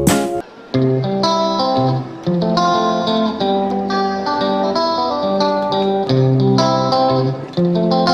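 Background music led by plucked guitar, a melody of clear picked notes over a steady bass line.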